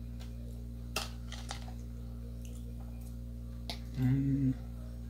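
Metal fork clicking against a plastic bowl a few times while eating, over a steady low electrical hum. About four seconds in, a short hummed "mm" from the man as he chews.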